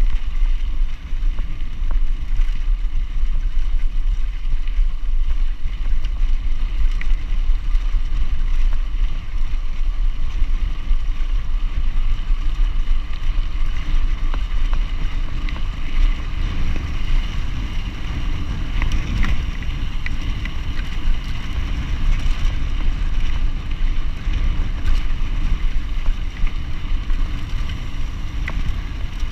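Wind buffeting the microphone over the steady rumble of mountain bike tyres rolling on a gravel track, with a few small clicks and rattles from the bike.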